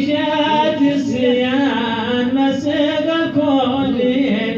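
Voices singing dan, the Hadhrami sung-poetry tradition, drawing out a long, slowly wavering melisma without clear words over a held lower note.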